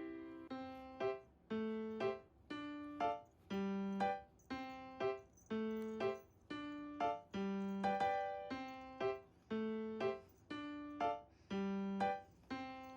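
Background music: a gentle piano or keyboard melody of single struck notes that repeat in a steady pattern, each note dying away.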